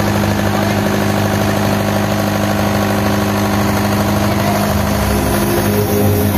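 Engine of a trailer-mounted generator set running steadily at idle, a low hum with an even firing rhythm. Near the end the lowest part of the sound grows stronger.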